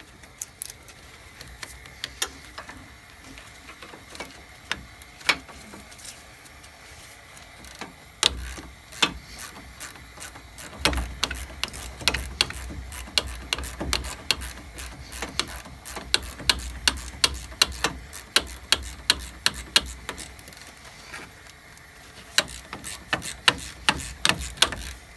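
Socket-wrench ratchet clicking as the lower brake caliper bolt is backed out. A few scattered clicks come at first, then from about eight seconds in a long run of quick, even clicks.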